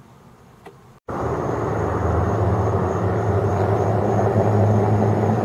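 A steady engine hum, low and even, that starts abruptly about a second in.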